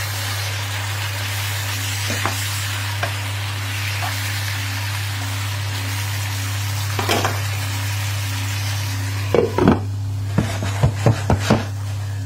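Steak and onions sizzling in a frying pan while a spatula stirs them. Near the end a glass lid goes onto the pan with a quick series of clinks and knocks, and the sizzle becomes muffled.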